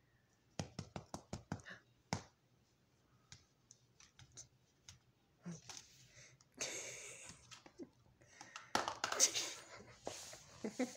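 A quick run of about seven light taps or clicks in the first two seconds, then two stretches of rustling as a cat swats at and grabs a plush banana toy on its fabric cat-tree perch.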